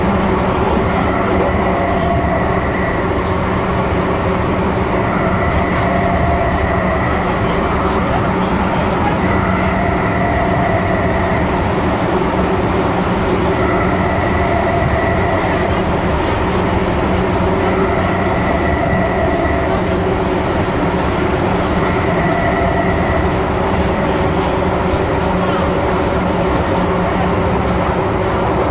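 MTR M-Train electric metro train running at speed, a steady rolling rumble with a higher tone that comes and goes about every four seconds.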